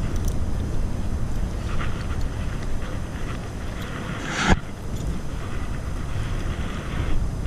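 Wind buffeting the microphone of a body-worn camera: a steady low rumble. A single sharp knock comes about four and a half seconds in.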